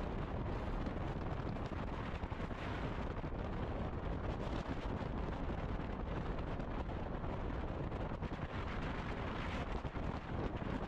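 Wind rushing over an action camera's microphone while riding a road bike at speed: a steady noise, strongest in the low end, with no pauses.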